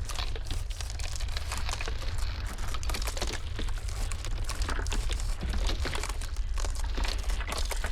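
Ice cracking in a dense, continuous run of small snaps and crackles over a steady deep rumble of blizzard wind.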